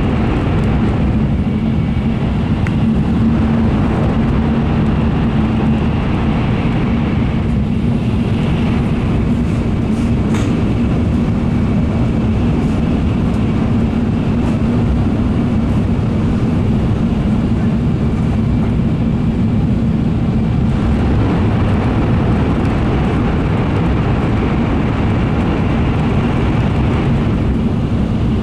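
Interior running noise of an N700A-standard N700 series Shinkansen at speed: a steady rumble with a low hum. The upper part of the noise dulls about 8 seconds in and comes back about two-thirds of the way through.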